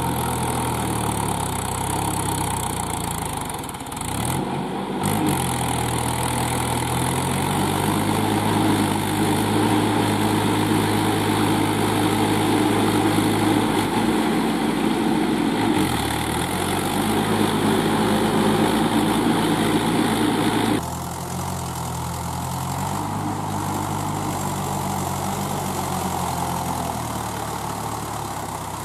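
Mahindra 475 DI tractor's diesel engine running under load as the cage-wheeled tractor pushes through deep paddy mud. Its revs sag briefly twice and pick up again. About two-thirds of the way in the sound changes abruptly to a quieter, duller engine note.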